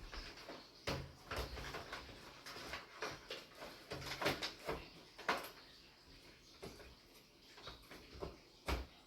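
Scattered clicks, knocks and rustling from handling computer parts such as power-supply cables and the case, with a few sharper knocks about four seconds in, five seconds in and near the end.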